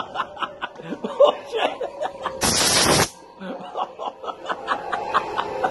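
A person laughing in short, rapid bursts, broken about two and a half seconds in by a loud hiss lasting under a second.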